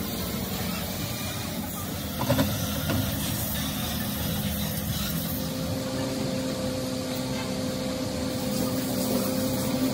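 A motor vehicle engine runs steadily close by, a low rumble that gains a steady hum about halfway through. A few sharp metallic clacks about two seconds in, where lead battery plates are handled and set into a steel assembly jig.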